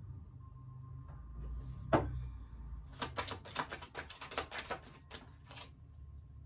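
A deck of tarot cards being handled and shuffled by hand: one sharp tap about two seconds in, then a quick run of crisp card snaps and rustles for about three seconds.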